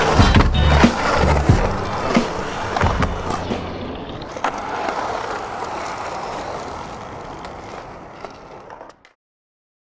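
Skateboard wheels rolling on concrete, with scattered clacks and board impacts. It fades out steadily and cuts off about nine seconds in. Music with a bass line runs under it for the first couple of seconds.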